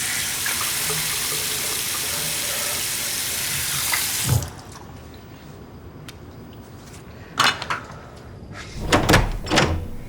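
Water running in a steady stream, shut off about four seconds in with a thud. A few sharp knocks and clatters follow, one at about seven and a half seconds and a cluster near the end.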